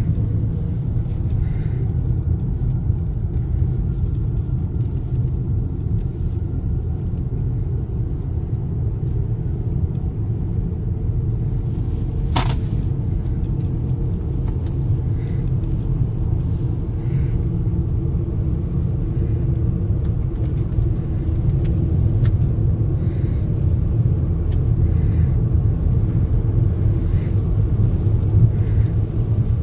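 A car driving at road speed, heard from inside the cabin: a steady low rumble of engine and road noise. There is a single sharp click about twelve seconds in.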